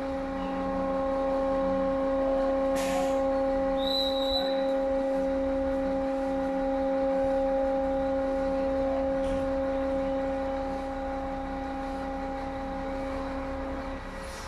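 A long, steady horn blast held on one pitch for about fourteen seconds, cutting off abruptly near the end. A single click and a short high beep come a few seconds in.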